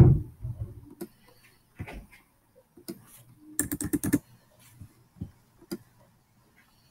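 Computer keyboard and mouse clicking: a few separate clicks and, about three and a half seconds in, a quick run of about five keystrokes while a date is edited in a text field.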